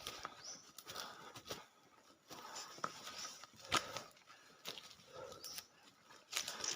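Irregular footsteps and rustling on a forest floor.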